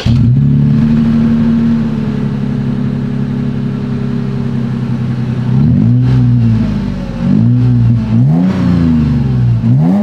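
2023 Toyota 4Runner TRD Pro's 4.0-litre V6 through its TRD performance exhaust: it fires up, idles steadily, then from about six seconds in is revved in several quick throttle blips, each rising and falling in pitch.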